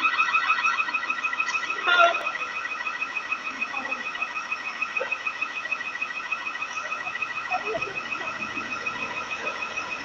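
Security alarm sounding a rapid, continuous pulsing beep, several tones pulsing together, with a brief louder moment about two seconds in.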